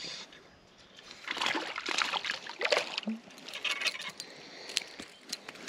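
A small perch splashing at the water's surface as it is reeled in to the boat on a spinner, in a run of short, irregular splashes, followed by a few sharp clicks.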